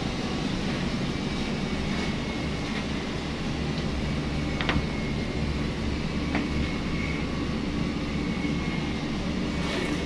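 Steady low hum and rumble of running machinery in a laundry room, with a couple of faint clicks about halfway through.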